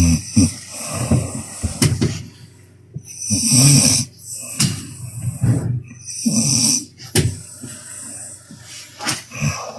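A woman snoring loudly, one long snore about every three seconds, with short clicks between the snores.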